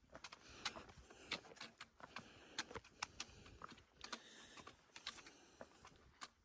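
Footsteps on a rocky trail: boots stepping over loose stones, giving faint irregular clicks and scuffs of rock on rock.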